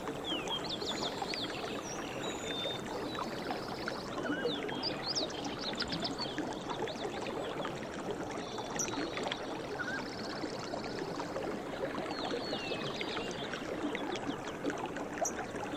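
A stream running steadily, with many small birds chirping over it throughout and two short buzzy trills.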